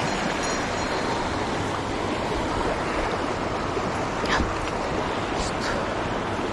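Steady rushing of a mountain stream's flowing water, with a few short faint ticks about four and five and a half seconds in.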